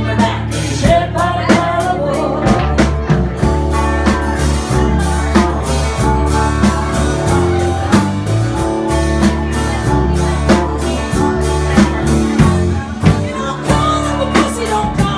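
Live blues-rock band playing with a steady drum-kit beat under electric and acoustic guitars and a bass line, and a woman singing at times.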